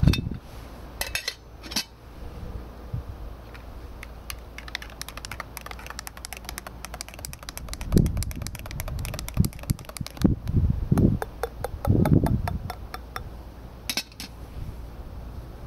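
A spoon stirring a drink in a camping mug: a long run of quick, light clinks, with a few dull knocks of the mug and pot being handled.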